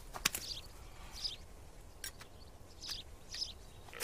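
Faint bird chirps, short and high, scattered over quiet outdoor ambience, with a couple of sharp clicks near the start.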